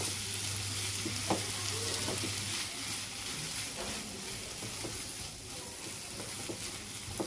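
Chopped vegetables with freshly added tomatoes sizzling as they fry in a pan over a high gas flame, with a spatula stirring and scraping now and then.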